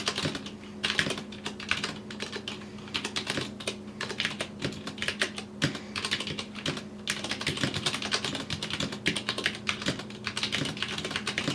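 Continuous fast typing on a Vortex POK3R mechanical keyboard with Cherry MX Brown switches and PBT keycaps: a dense, uneven run of key clacks with brief pauses, stopping at the very end. A faint steady hum sits beneath.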